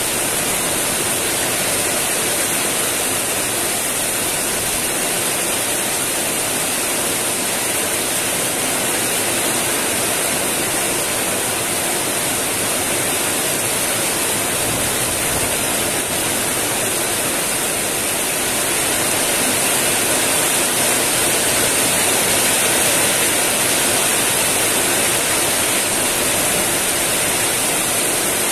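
Heavy tropical rain falling steadily on clay-tile roofs and banana leaves, with water streaming off the eave: a dense, even hiss that grows slightly louder about two-thirds of the way through.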